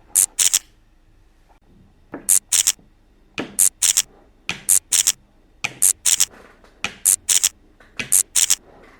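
Toy packaging being handled: short, crisp scratching or snipping sounds that come in quick pairs and threes, about one group a second.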